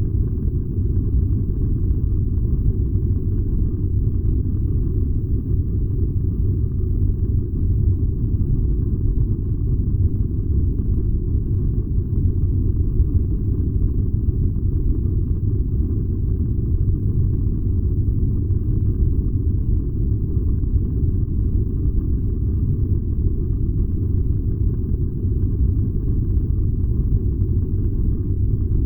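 Furnace running with a steady, deep rumble that does not change.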